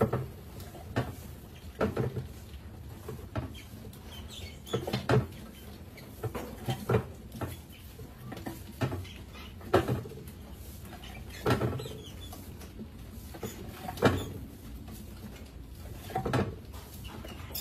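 Hinged wooden tipping flaps of a glass-tank mouse trap knocking as mice step onto them and fall through. The short, irregular clacks come roughly once a second.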